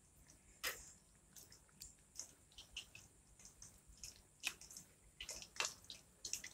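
Chicken pakoras deep-frying in hot oil in a kadai: faint, irregular crackles and pops.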